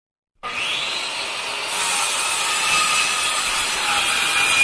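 Power saw cutting wood: a steady high whine over a rasping hiss, starting about half a second in.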